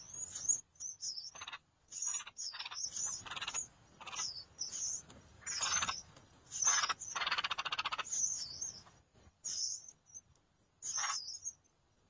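Nestling songbirds begging in the nest: repeated high, thin, wavering cheeps, mixed with harsh rasping bursts that are loudest about halfway through.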